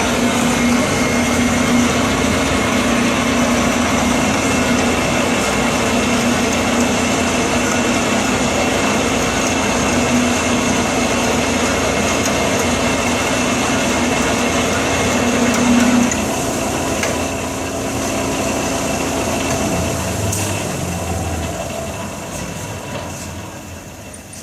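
Grob 4V-18 metal-cutting band saw cutting through quarter-inch steel: a loud, steady mechanical running with a low hum and high whine, starting suddenly. About two-thirds of the way through the low hum stops, and the running then fades away near the end as the cut finishes.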